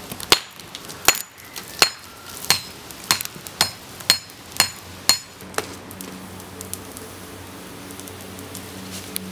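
Hammer blows on a red-hot piece of farrier's rasp on an anvil, about ten strikes at a steady pace, each with a bright metallic ring. The blows stop a little past halfway.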